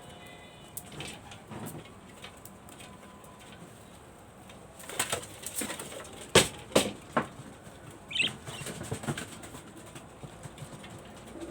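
Pigeons cooing, with a flurry of wing flaps and sharp knocks about halfway through, and a short chirp just after.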